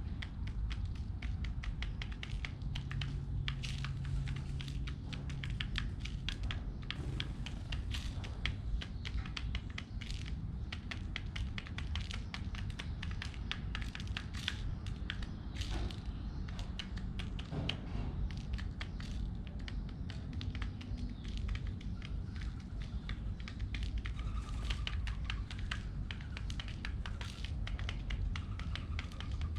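Pigeons pecking at scattered seeds, a dense, irregular run of quick taps and clicks, over a steady low rumble.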